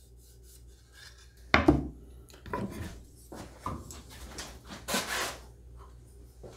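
A pine board set down on a plywood crosscut sled with one sharp wooden knock. It is followed by scattered light clicks and rubbing as a metal square is fetched from the bench, with the table saw switched off.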